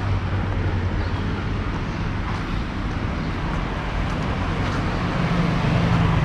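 Steady city street traffic noise, a rumble of passing cars and motorbikes, with one vehicle's engine hum growing louder near the end.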